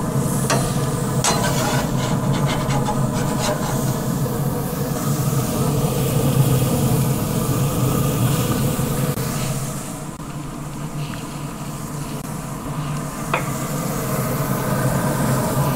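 Beef burger patties sizzling on the grate of a Pit Boss pellet grill over the steady hum of the grill's fan. A metal spatula scrapes and clicks against the cast grate in the first few seconds as the patties are turned, with one more sharp click later on.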